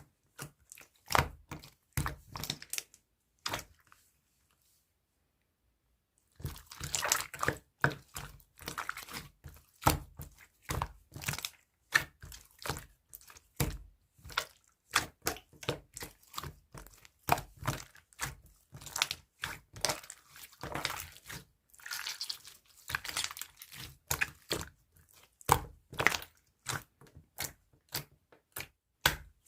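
Clear jelly-textured slime being squeezed and pressed by hand, giving rapid sticky crackles and pops, with a break of about two seconds of silence some four seconds in.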